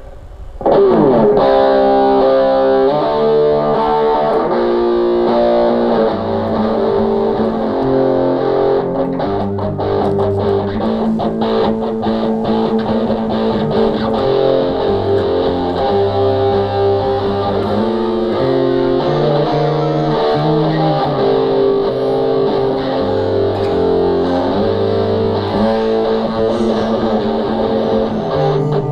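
Electric guitar played through a multi-effects unit's studio-bass patch, laying down a bass line over an already recorded electric guitar track; the music starts about a second in. The bass line is a little out of key, as it was improvised.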